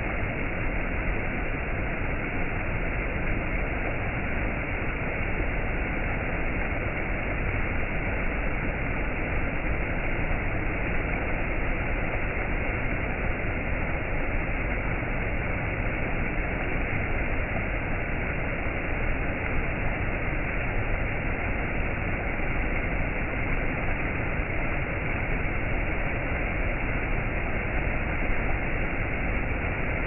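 Steady rushing of a shallow stream tumbling over low rock ledges in small cascades, an even, unbroken wash of water noise.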